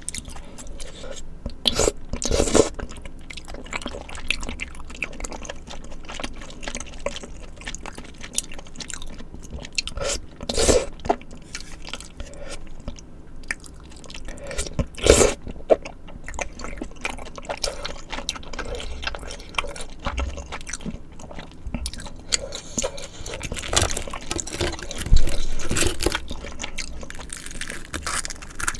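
Close-miked chewing of spicy tteokbokki and fried snacks: steady wet, clicky mouth sounds, with a handful of louder bites or crunches spread through.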